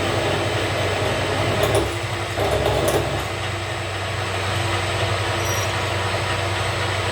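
Metal lathe running steadily while a drill bit cuts a pilot hole into bushing stock, with a few brief clicks about two seconds in.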